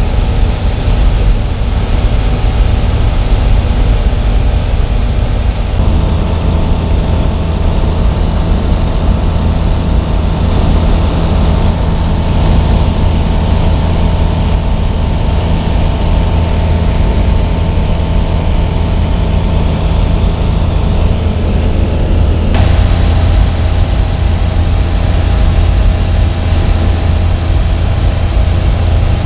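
Kitfox light aircraft's engine and propeller droning steadily in cruise flight, heard from inside the cockpit. The pitch of the drone shifts abruptly about six seconds in and again near the end.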